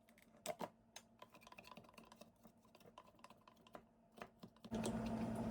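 A run of light, irregular clicks and taps, then a steady low hum starts near the end.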